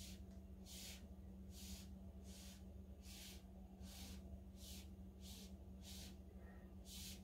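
Short, soft puffs of blown air, about one a second, as air is blown across wet acrylic pour paint to spread it out.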